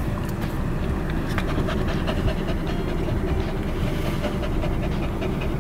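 Small Shih Tzu–toy poodle cross panting at close range, over the low rumble of the car it is riding in.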